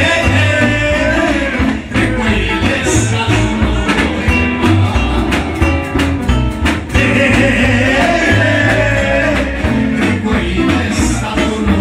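Live band music: a singer over electric bass guitar and drum kit, with a steady beat.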